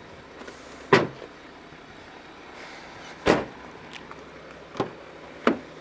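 Four separate knocks and clicks from the car's doors and tailgate being handled: a sharp knock about a second in, a heavier thud about three seconds in, and two lighter clicks near the end, over a faint steady hum.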